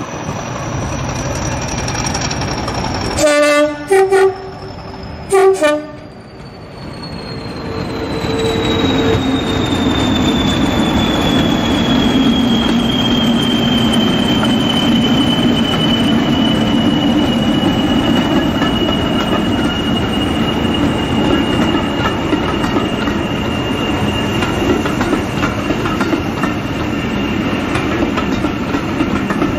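BR Class 40 diesel-electric locomotive sounds its two-tone horn about three seconds in, then gives a second, shorter blast about two seconds later. Its diesel engine then swells about eight seconds in and runs on steadily under a high whistle that slowly falls in pitch, typical of the class's turbochargers.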